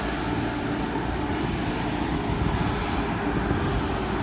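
Heavy truck engine running steadily: a low, even drone with a light hiss over it.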